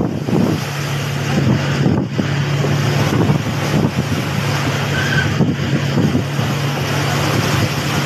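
A fishing boat's engine running with a steady low hum, under the rush of wind on the microphone and waves splashing against the hull as the boat pushes through rough sea.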